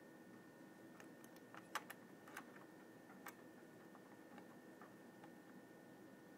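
Near silence with a scattering of faint, light clicks as fingers handle the metal load plate and retention lever of an LGA 775 CPU socket. The clicks are loudest about two seconds in and thin out after that.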